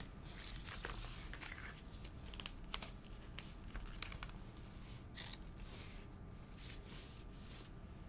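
Fingers handling small stickers and pressing them onto a silicone iPad case: scattered light taps and clicks with short papery rustles.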